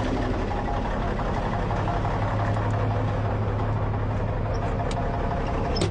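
Semi truck's diesel engine idling steadily, with a deeper hum swelling for a couple of seconds in the middle and a few light clicks near the end.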